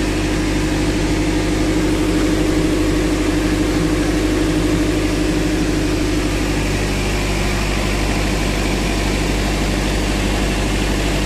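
Excavator diesel engine idling steadily. A higher tone in the drone fades about seven seconds in.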